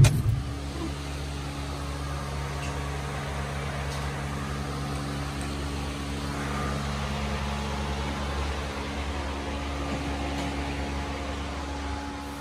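Steady mechanical hum of a running motor or fan, with several held low tones and no change in level.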